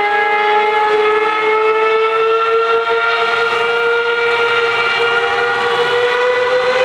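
A racing car's engine held at high revs, one high-pitched note that climbs slowly in pitch as the car runs down the wet circuit.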